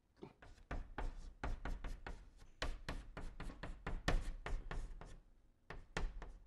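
Chalk writing on a blackboard: an irregular run of sharp taps and short scratches, several a second, with a brief pause near the end.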